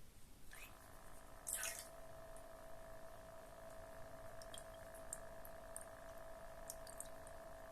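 Cat drinking fountain's small water pump switched on about half a second in, then humming steadily with a whiny tone; water splashes briefly about a second later, with faint drips. The hum is the fountain's fault and scares the cat away, even with rubber spacers and foam under the pump.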